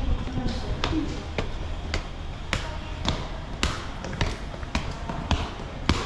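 Footsteps climbing a flight of stairs at a steady pace, about two sharp steps a second.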